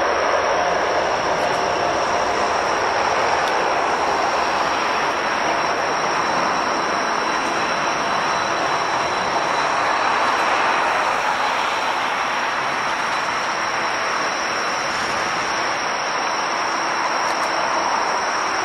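Jet engines of a four-engine airliner running, a steady rushing noise with a thin high whine over it, swelling slightly midway.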